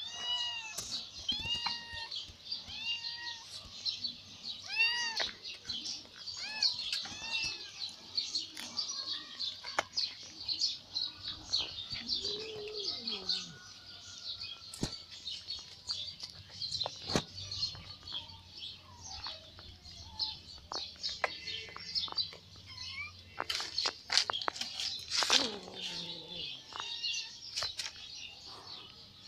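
A domestic cat meowing over and over in short arching calls, with one long falling yowl near the end. Small birds chirp constantly behind it, and there are occasional sharp taps.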